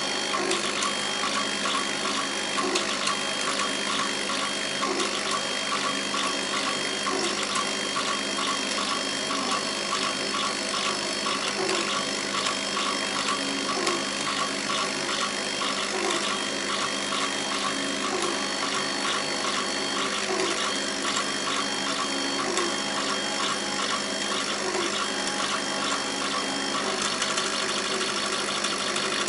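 CO2 laser cutter cutting a thin wood sheet: a steady hum of its air-assist pump and fans, with the moving head's motors whining in short, repeated starts and stops as it traces the cuts.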